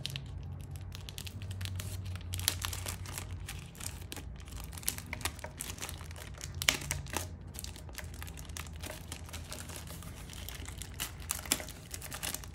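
Soft protective wrapping crinkling and rustling in irregular crackles as it is pulled and peeled off a handheld remote controller.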